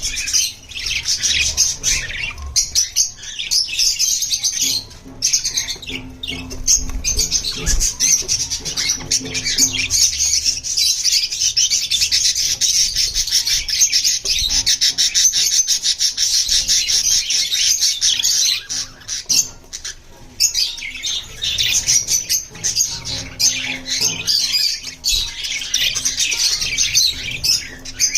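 Budgies (budgerigars) chirping and chattering continuously, a dense high warble with squawks, easing off briefly about two-thirds of the way through.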